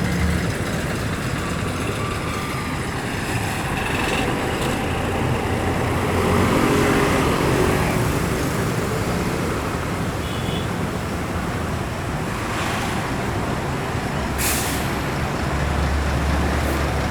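Heavy vehicle with air brakes running steadily, with a short sharp hiss of air released from the brakes about 14 seconds in.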